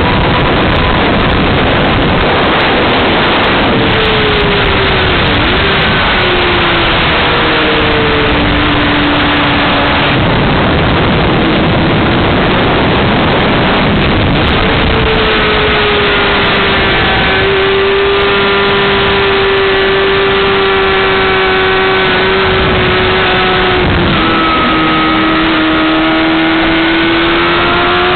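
2007 Honda CBR600RR's inline-four engine at track speed under heavy wind rush. The engine note falls and rises through gear changes in the first half, holds steady for several seconds in the middle, then dips and climbs again near the end as the bike accelerates.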